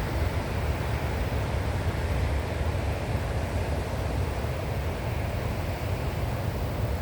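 Wind buffeting the microphone in a heavy low rumble over the steady rush of surf.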